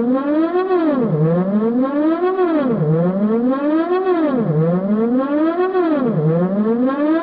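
Synthesized alarm siren: a wailing tone that climbs in pitch and then drops back down, repeating about every second and a half to two seconds.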